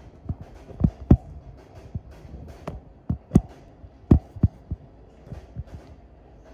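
Feet in wet black socks treading on a wet tile floor: a series of dull, low thuds at uneven intervals, the loudest about a second in and again between three and four and a half seconds.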